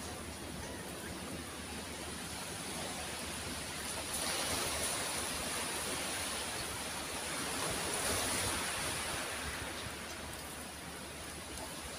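Sea waves washing onto the shore: a steady rush that swells twice, about four and eight seconds in.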